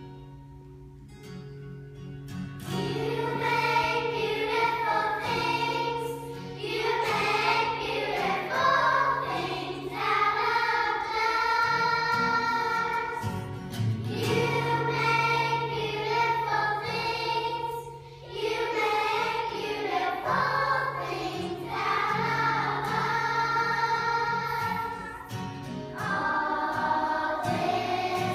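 Children's choir singing in unison with an acoustic guitar accompaniment; the guitar plays alone at first and the voices come in a couple of seconds in, singing in phrases with short breaths between them.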